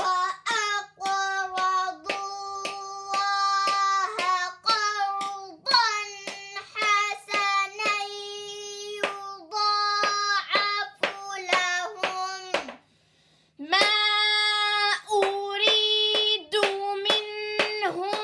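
A high voice recites Quranic Arabic slowly, syllable by syllable, in a drawn-out chant, as in Iqra reading practice. Sharp taps of a pointer stick on the book's page come with the syllables. There is a short pause about two-thirds of the way through.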